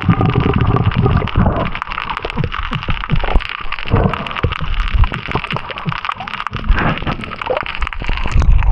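Water sloshing and gurgling right over the microphone, with a heavy low rumble and many small crackling clicks throughout.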